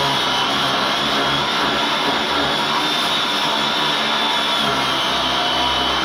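Power grinder cutting through steel, running steadily with a high motor whine that wavers and dips slightly as it loads in the cut.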